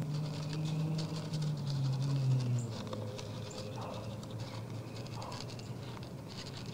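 Whitetail doe eating from a feeder trough close to the microphone: a fast, continuous run of crunching and clicking as she chews and noses through the feed. A low steady hum runs underneath and stops about two and a half seconds in.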